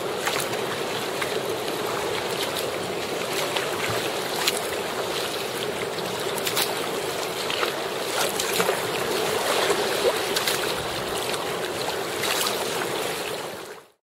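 Choppy sea water sloshing and splashing around a sea kayak, with occasional sharper splashes; the sound fades out quickly near the end.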